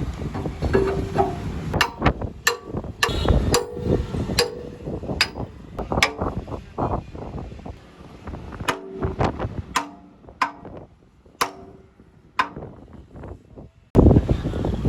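Hammer blows on steel in a workshop: about a dozen sharp, irregular metallic strikes, several ringing briefly after impact. Near the end the sound cuts to a denser, louder clatter.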